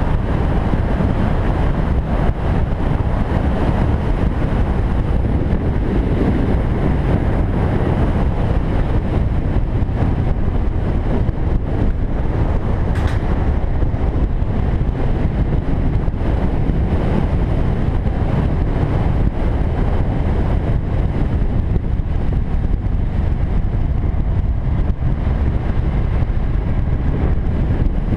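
Steady wind buffeting on the microphone with the running noise of a cruiser motorcycle riding at speed. A single brief click about halfway through.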